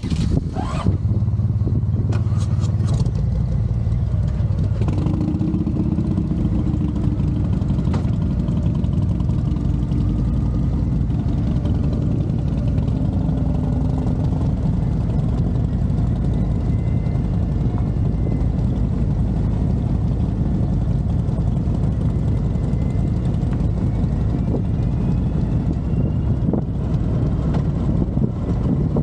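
Motorcycle engines running as the bikes ride off, with the nearest bike giving a loud, steady low rumble.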